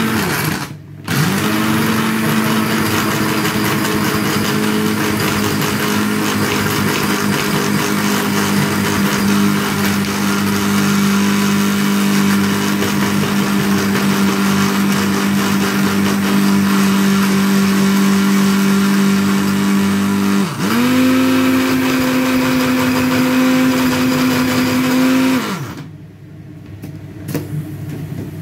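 Electric kitchen chopper's motor running with a steady hum and rattling, chopping cauliflower into rice-sized bits. It cuts out briefly about a second in and restarts, its pitch steps up a little about 20 seconds in, and it stops a couple of seconds before the end.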